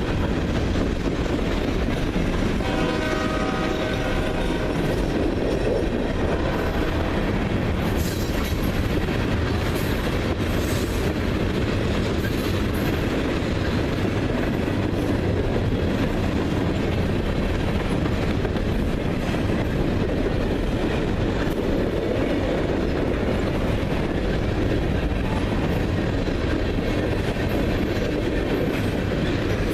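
CSX freight train rolling past with a steady heavy rumble of wheels on rail. Its horn sounds briefly a few seconds in, and sharp metallic clicks from the wheels come through for a few seconds in the middle.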